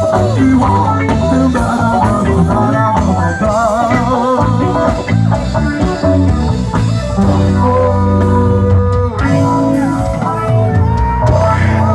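Live band music: electric guitar, bass and drum kit playing, with a wavering melody line carried over sustained low notes.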